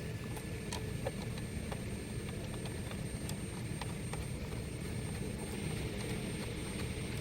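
Steady low background rumble with a few light metallic clicks as the steering wheel nut is put on and threaded onto the column shaft by hand.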